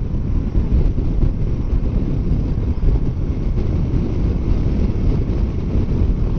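Heavy wind buffeting on the microphone of a motorcycle riding at about 60 mph: a steady, low rushing noise that covers any engine sound.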